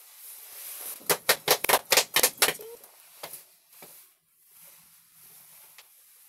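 Sharp clicks or taps: a quick run of about eight, roughly six a second, then two single clicks.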